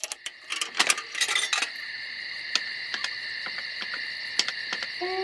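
Metallic clinking and rattling, a dense run for the first second and a half and then scattered single clicks, over a steady high whine; stepped musical tones come in at the very end.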